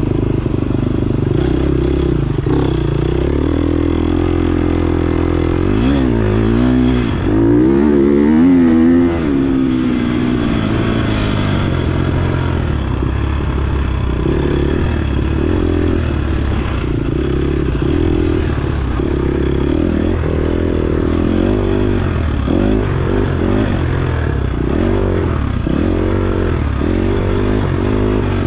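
KTM 250 XC-F dirt bike's single-cylinder four-stroke engine being ridden hard, revving up and dropping off again and again with throttle and gear changes. The loudest run-up in revs comes about eight seconds in.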